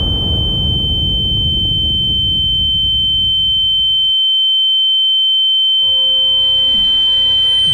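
A steady high-pitched sine tone, the ear-ringing sound effect that follows an explosion, while the explosion's low rumble dies away over the first four seconds. Faint music with sustained notes comes in about six seconds in.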